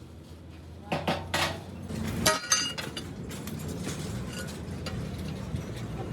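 Metal parts clinking and clanking as they are handled, with a few sharp ringing strikes about a second in and again around two and a half seconds in.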